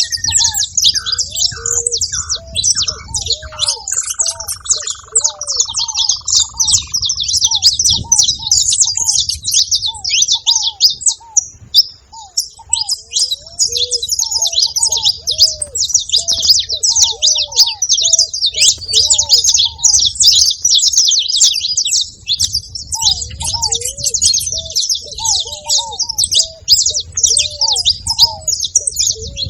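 Saffron finches singing without pause in rapid, high twittering, with a ruddy ground dove's short, low coos repeating beneath them. In the first few seconds a separate call steps down in pitch and trails off.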